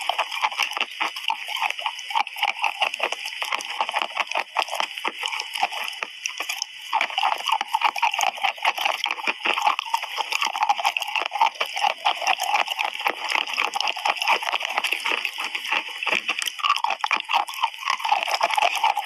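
Wet chalk being bitten and chewed right at a clip-on microphone: a dense, continuous moist crunching and crackling with no pauses.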